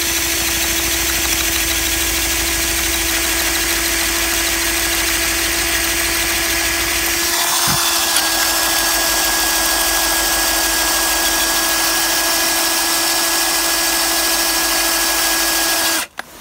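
Cordless drill boring into the steel locking collar of a seized PTO shaft yoke, its motor running steadily under load with a short break about halfway through. It stops near the end.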